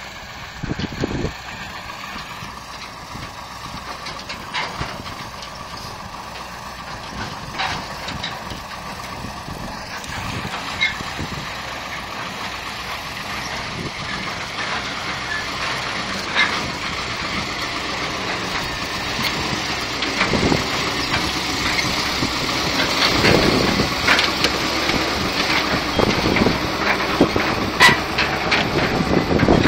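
A parked KamAZ truck's diesel engine running at idle, getting steadily louder, with a few sharp knocks.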